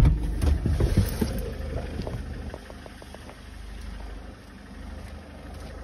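VW camper van's engine idling with a steady low rumble. A sharp knock comes right at the start, then a few smaller clicks in the first couple of seconds.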